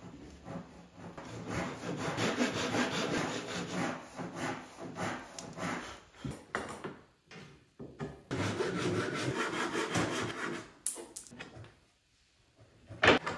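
Japanese pull saw cutting through a walnut rail in quick, even strokes, in two runs with a pause between. A few sharp wooden knocks follow near the end as the cut rails are handled.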